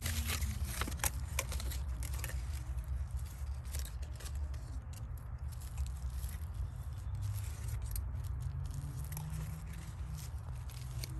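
Hands working a fruit-tree branch for air-layering: scattered scraping and sharp crackling clicks, densest in the first second and a half, over a steady low rumble.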